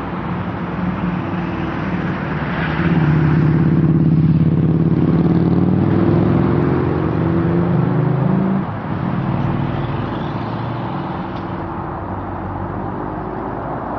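Car engine running close by over street traffic noise, getting louder about three seconds in and dropping away sharply near the nine-second mark.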